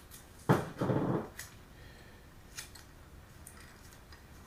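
Tape pulled off the roll in a short rasping rip about half a second in, then a few faint clicks and rustles of hands wrapping it around the fuses.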